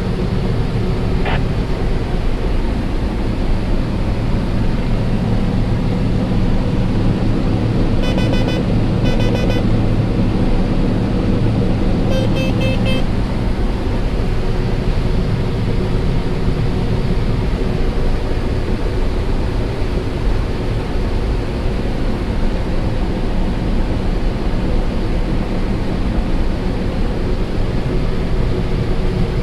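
Combine harvester running steadily while harvesting corn, a loud even drone. A few short electronic beeps sound about a third of the way in and again a few seconds later.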